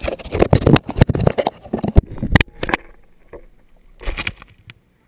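Handling noise on the drone-mounted GoPro's microphone as the drone is moved and set down in the grass: irregular rustling, bumps and knocks, loudest in the first three seconds with a sharp knock about two seconds in, one more burst about four seconds in, then the sound cuts off.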